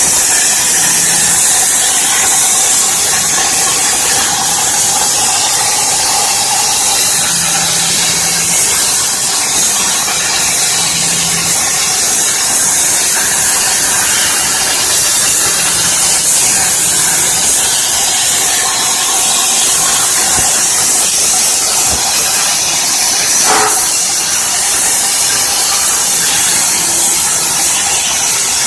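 CNC plasma cutting machine's plasma torch hissing steadily as it cuts metal.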